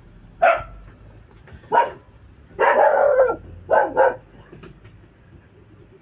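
A dog barking several times in short barks, with one longer run of barking about two and a half seconds in.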